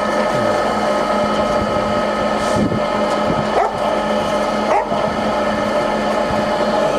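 San Yuen GF2000A centre lathe running, its three-phase motor and geared headstock giving a steady whine while the carriage is driven along the lead screw in reverse. A few short rising squeaks sound over it.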